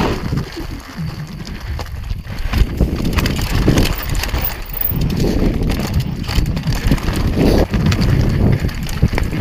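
Mountain bike running fast down a loose, rocky trail: tyres crunching over gravel and stones with a constant clatter of knocks and rattles from the bike over the bumps, and wind rumbling on the microphone.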